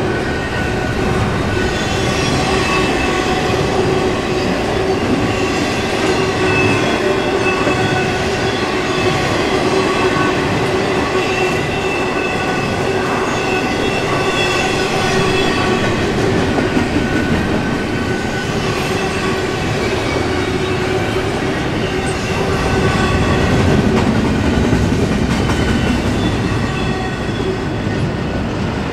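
Double-stack intermodal container train's cars rolling past at speed: loud, steady rumble of steel wheels on the rails, with steady high-pitched tones running over it.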